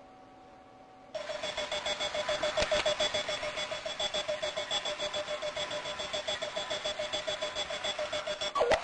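Runaway wheeled alarm clock going off: a fast, even run of electronic beeps, several a second, starting about a second in.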